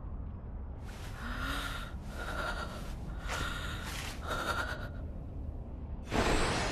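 A woman's voice breathing hard: four ragged, breathy pants, then a sharp, louder gasp near the end, over a steady low rumble.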